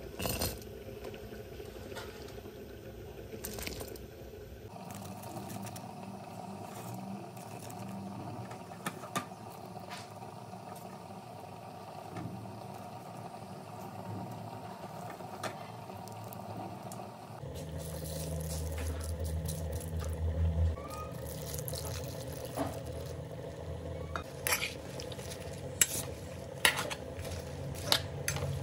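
Cooking sounds from a pan on the stove: a steady hum with scattered clinks of the pan and utensils, which become more frequent in the last ten seconds. The hum changes abruptly twice.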